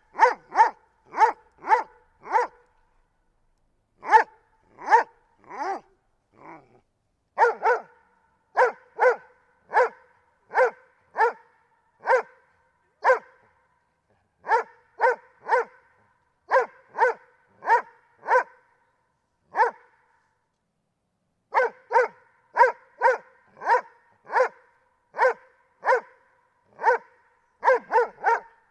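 Doberman barking: runs of short, sharp barks at about two a second, broken by pauses of a second or two.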